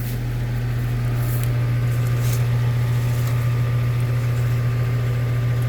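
Package air-conditioning unit running with a loud, steady low hum.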